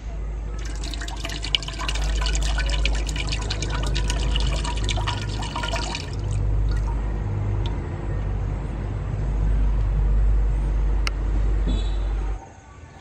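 Coconut water poured from a green coconut into an empty aluminium pot, splashing and trickling for about five seconds. Underneath is a steady low rumble that stops near the end.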